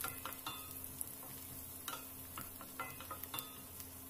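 Wooden spatula stirring sliced onion and garlic in a stainless steel frying pan, with scattered light clicks against the pan over a faint sizzle of hot oil as they are sautéed until fragrant.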